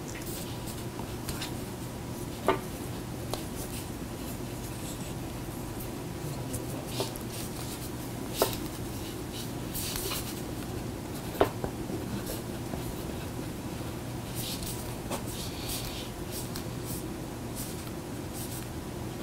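Pens scratching on paper as notes are written at a table, in short scattered strokes over a steady low room hum. Three brief sharp taps stand out, about two and a half, eight and a half and eleven and a half seconds in.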